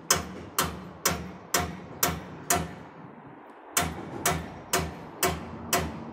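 A series of sharp, briefly ringing knocks at an even pace of about two a second, eleven in all, with a break of about a second near the middle.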